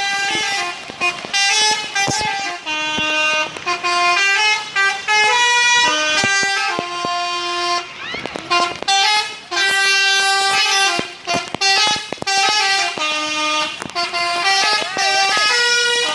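A Garuda Mas bus's telolet horn, a multi-tone air horn, playing a sholawat melody. Loud held notes step up and down in pitch, with short breaks between phrases.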